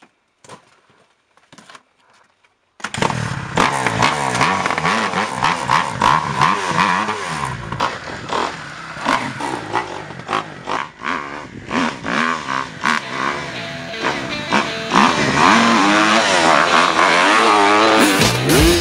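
Dirt bike engine revving hard in repeated bursts, its pitch rising and falling as the rider works the throttle on a climb. It starts suddenly about three seconds in, after faint scuffing on rock.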